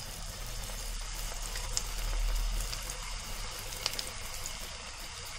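Vegetable Manchurian balls deep-frying in hot oil: a steady sizzle and bubbling, with a few small pops about two and four seconds in.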